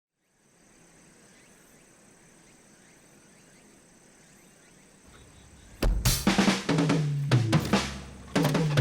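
Background music with a drum kit and bass comes in with a sharp hit close to six seconds in, after a few seconds of faint background.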